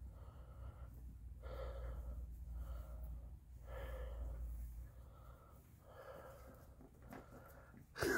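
A person's slow breathing close to the microphone, a soft breath about every second and a half, over a low rumble that stops about five seconds in.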